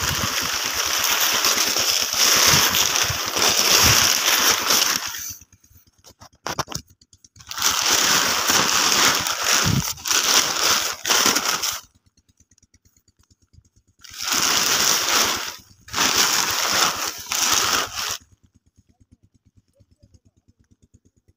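A large plastic sheet rustling and crinkling as it is pulled back off a pile of chopped straw, in four long bursts with short pauses between; it falls nearly quiet for the last few seconds.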